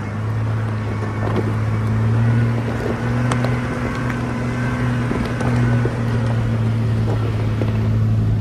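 Jeep Wrangler LJ's engine running steadily with a low drone while driving down a dirt trail. Scattered short knocks and rattles come through over it.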